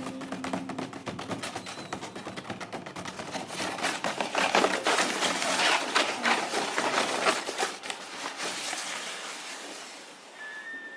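Rapid, dense clicking and scratching with no clear pitch, growing louder toward the middle and then fading near the end: extended-technique, noise-based playing in a contemporary chamber piece.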